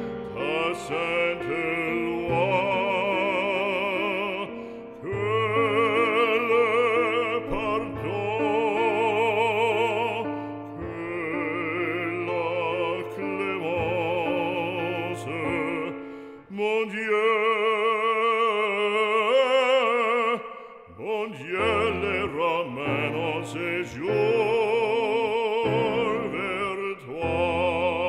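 Background music: an operatic voice singing a French-language aria with classical accompaniment, its held notes wavering with a wide vibrato. The singing pauses briefly about two-thirds of the way through.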